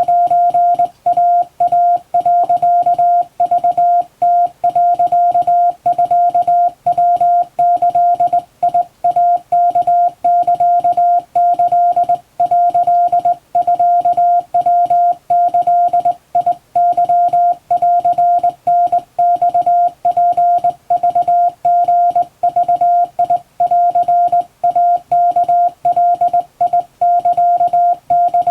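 Japanese wabun Morse code hand-sent on a straight telegraph key, heard as one steady mid-pitched beep keyed on and off in dots and dashes, with short gaps between characters.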